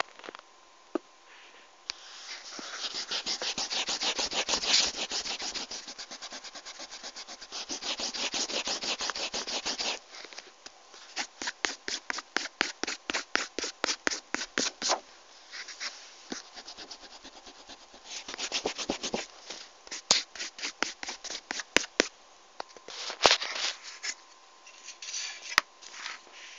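Scratchy rubbing on paper. There are two long stretches of steady rubbing, then a run of short quick strokes at about four a second, then scattered strokes and scratches.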